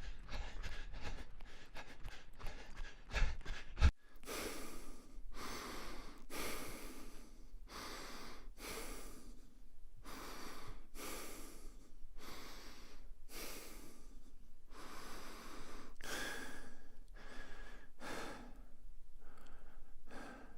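A quick run of light taps ending in a thump about four seconds in, then a person breathing heavily and evenly, about one breath a second.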